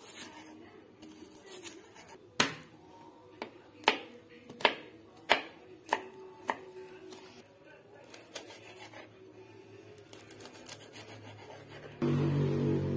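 Chef's knife slicing shallots and a garlic clove on a plastic cutting board: a run of sharp knocks of the blade hitting the board, most between about two and seven seconds in, with fainter cutting after. Near the end, background music comes in abruptly.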